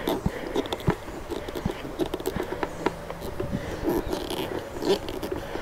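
Screwdriver turning a screw into a rubber-sleeved nut on a motorcycle windshield's mounting bracket: irregular small clicks and short scrapes of the tool and metal hardware.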